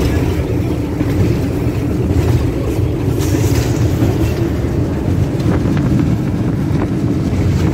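Steady low rumble of a 6500 series diesel locomotive under way, heard from inside its cab, with engine drone and running noise. A few short clicks and rattles come through about two, three and five seconds in.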